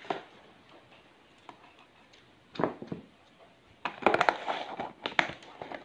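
Thin plastic food-container lid being pressed and snapped onto its tub. There is a click at the start, a few crackles about two and a half seconds in, and a dense run of clicking and crinkling from about four seconds as the rim is pushed down.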